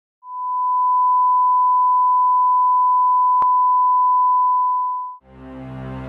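A steady 1 kHz reference test tone holding at one pitch for about five seconds, with a single click partway through. It cuts off abruptly near the end and music begins.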